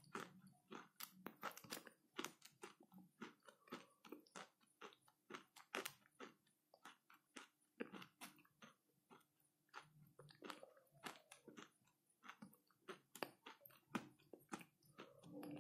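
A person chewing something dry and crunchy close to the microphone: a faint, irregular run of small crunches and mouth clicks.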